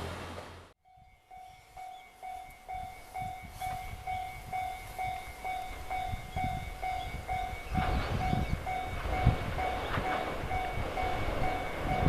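Railway level crossing alarm ringing about twice a second, while a diesel railcar's rumble grows from about eight seconds in as the train approaches. A moment of train noise cuts off abruptly just before the alarm starts.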